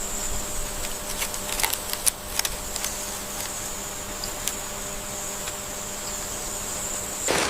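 Jungle ambience: a steady high insect drone over a low hiss, with scattered light clicks. It cuts off abruptly near the end.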